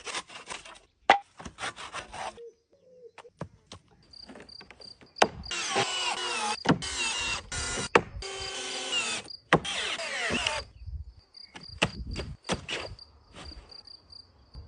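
Woodworking tool sounds on pallet wood: short scraping or sawing strokes at first, then from about five seconds in a power tool running in several loud stretches of a few seconds, its pitch bending as it speeds up and slows, with sharp knocks in between. A cricket chirps steadily through the second half.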